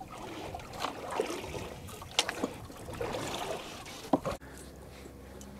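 Small river waves lapping against a boat's hull, with a few sharp clicks and knocks from fishing tackle being handled, around two seconds in and again just after four.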